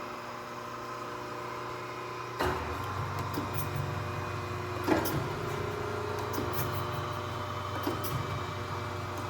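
Kent KGS-63AHD hydraulic surface grinder starting up: one motor is already humming steadily, and about two and a half seconds in a second motor comes on, adding a deeper hum. The machine then runs steadily with light knocks about every second and a half.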